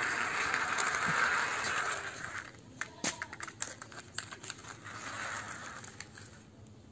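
Small plastic toy wheels rolling and scraping over rough concrete, then a run of light plastic clicks and taps as the toy auto rickshaw is handled and set down.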